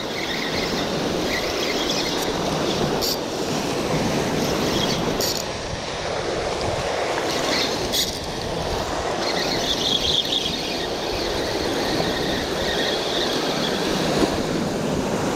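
Shimano Stradic spinning reel cranked steadily to retrieve a jig, over the steady wash of surf against the rocks, with three sharp clicks along the way.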